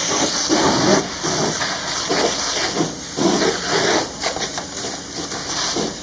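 Fire hose water jet hitting a burning car: a steady hiss with irregular louder surges as the spray strikes the flames and hot metal.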